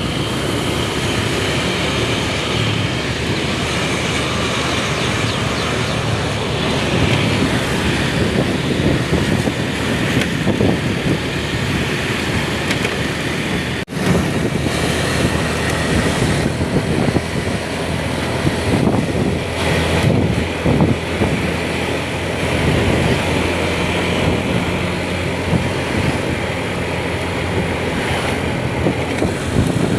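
A vehicle on the move: an engine running steadily under constant road and wind noise. The noise drops out for an instant about fourteen seconds in.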